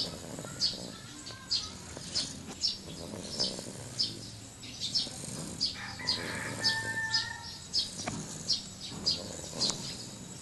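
A bird chirping over and over, short high chirps roughly every half second. A brief steady whistle-like tone comes in about six seconds in.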